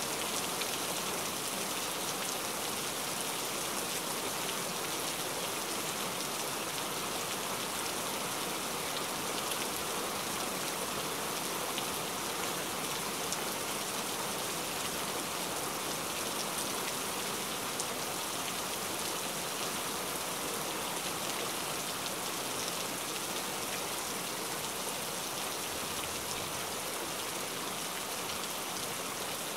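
Steady rain falling: an even hiss with faint, scattered ticks of drops.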